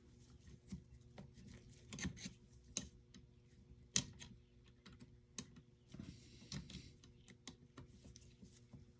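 Allen keys and small tools being handled on a work surface: faint, irregular light clicks and clinks, with a few sharper taps, the loudest about four seconds in.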